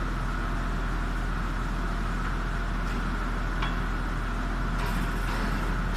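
Steady machinery drone with a constant whine above it, unchanging in level.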